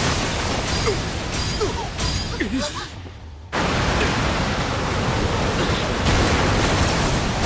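Anime blast sound effect: a steady rushing noise of wind and debris from a huge ice-and-fire explosion. It fades and drops out about three seconds in, then cuts back in sharply half a second later.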